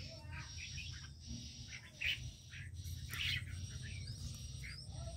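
Small caged aviary birds chirping, short high chirps about once a second, over a faint steady low hum.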